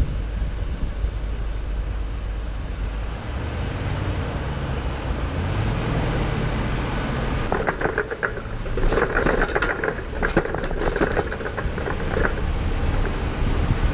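Ford shuttle bus on the move: a steady engine and road rumble, with rattling and squeaking clatter joining from about halfway through.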